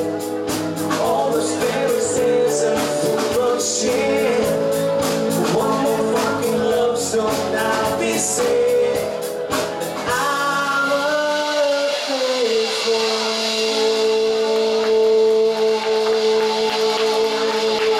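Live pop-rock band with a lead singer playing the end of a song. The drums stop about ten seconds in, a short descending figure follows, and the band holds a long final chord under a sustained note.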